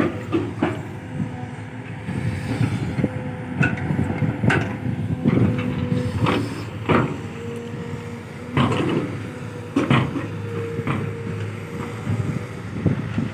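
Kobelco SK210-8 Super XM excavator running under work, its engine and hydraulics giving a steady whine, with irregular knocks and thuds about every second as it digs and loads soil.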